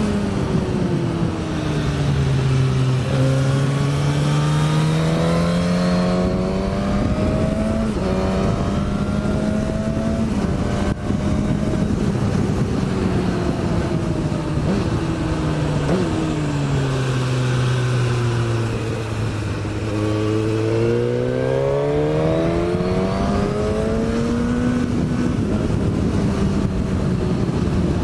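2018 Suzuki GSX-S1000's inline-four engine through a Yoshimura exhaust, heard onboard while riding with wind rush. The engine note drops a couple of seconds in, climbs back and holds, sinks lower again about two-thirds of the way through, then rises once more as the bike accelerates.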